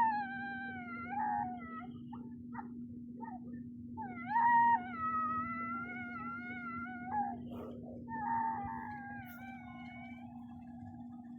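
High, wailing cry sound effect of a cartoon character crying: three long wavering wails, each sliding down in pitch, over a steady low hum.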